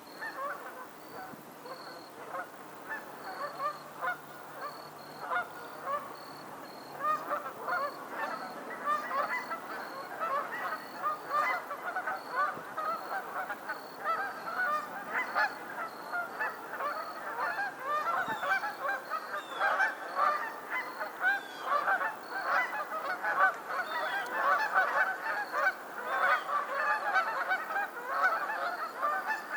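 A flock of geese honking: a dense chorus of many overlapping calls that grows fuller and louder from about seven seconds in.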